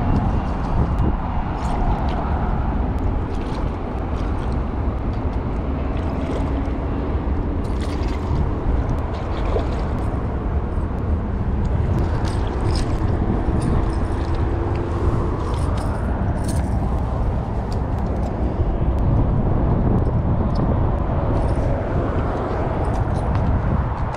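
Wind rumbling steadily on the microphone, with scattered faint clicks and rustles of handling.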